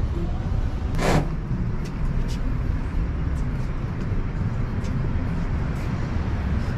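Steady low rumble of city traffic from the streets below, with a brief loud hiss about a second in.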